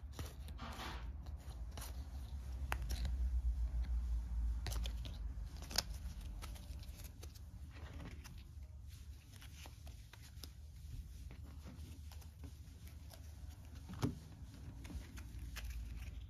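Room 25 game cards being handled: cards flicked through and slid against each other and laid down on the cardboard game board, with many small clicks and rustles. A low rumble of handling noise swells a few seconds in, and two sharper taps stand out, about six seconds in and near the end.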